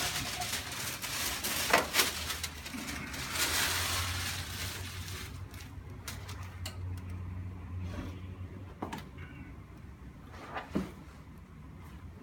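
A patient moving onto and settling face down on a padded treatment table: rustling and shifting, with a few sharp knocks. A low steady hum is heard for a few seconds in the middle.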